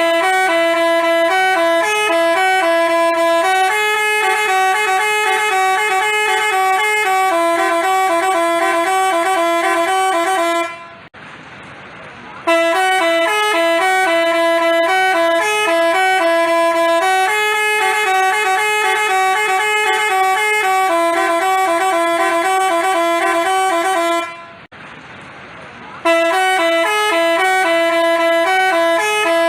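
Telolet basuri multi-tone bus horn playing a quick, looping melody of high piping notes. The tune breaks off about eleven seconds in and again near twenty-five seconds, each time starting over after a pause of a second or so.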